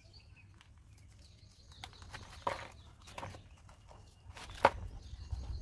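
Hands tearing apart the root-bound root ball of a snake plant: scattered rustles and crackles of roots and packed soil, with one sharper click a little past the middle.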